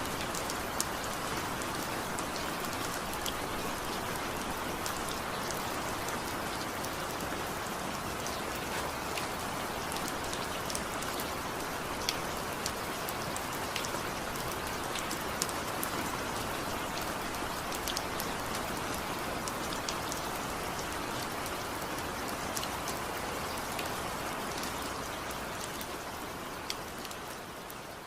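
Steady rain falling, with scattered sharp ticks of single drops striking nearby. The sound fades down over the last few seconds.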